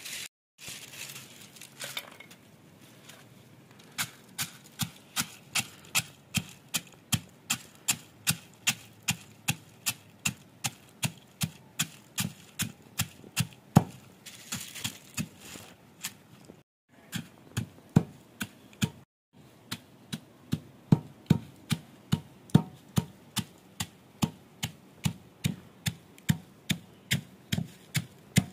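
Stone pestle pounding dried tomato pieces in a stone mortar, grinding them to powder: steady knocks, about two and a half a second, with a short break midway.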